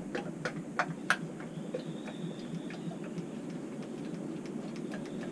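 Engine oil being poured from a plastic jug through a funnel into a diesel engine's filler. There are four or five sharp clicks from the jug in the first second or so, over a steady low background noise.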